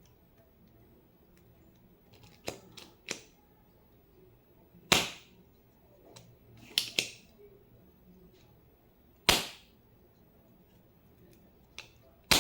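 A series of sharp snaps and clicks from work on a mechanical keyboard, irregularly spaced. Some come singly and some in quick pairs, and the loudest are about five and nine seconds in.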